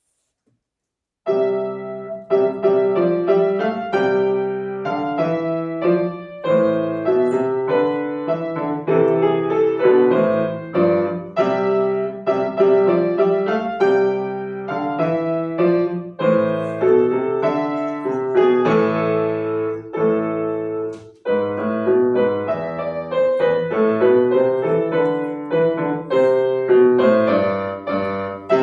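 Piano playing a solo piece, starting about a second in after silence, with a steady run of notes and chords.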